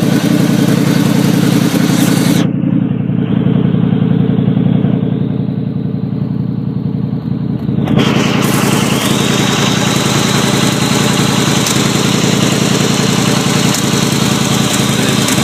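A 1989 Chevy Caprice's engine running steadily, loud because of an exhaust leak on one side of the exhaust. For several seconds near the start the sound turns muffled, then opens up again.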